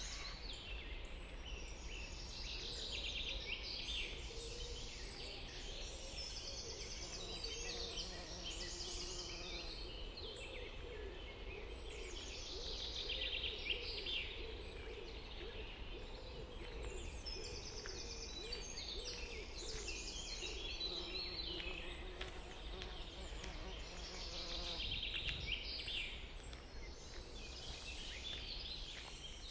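Several songbirds singing at once, overlapping repeated trilled phrases, with a lower wavering sound underneath for much of the middle and a faint steady low rumble.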